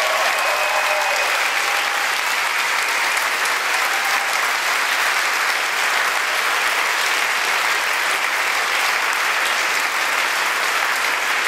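Audience applauding: dense, steady clapping that holds at the same level throughout.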